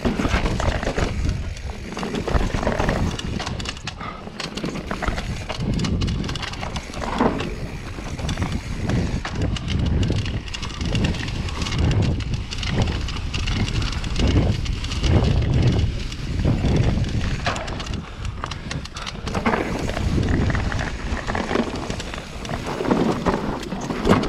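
Mountain bike riding fast down a rough dirt singletrack: tyres rumbling over dirt and rocks, with the frame and components rattling at each bump. Wind buffets the camera's microphone in uneven gusts.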